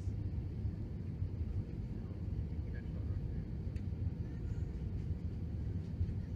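Steady low rumble of an Airbus A320 heard from inside the cabin on short final approach: engine and airflow noise.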